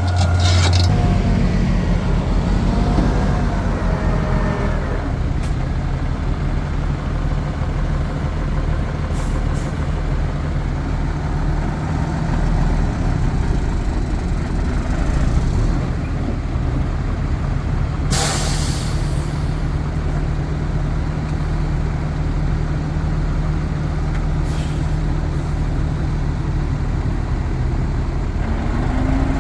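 Heavy diesel engine of an earthmoving machine running steadily at a low, even pitch, with one short hiss of released air about two thirds of the way through.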